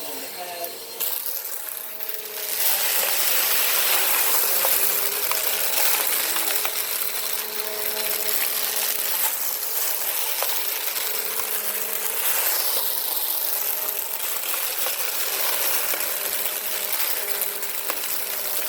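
Bissell Power Force Compact vacuum cleaner running over carpet, sucking up sand and debris, with many small clicks of grit rattling through it. It gets louder about two and a half seconds in.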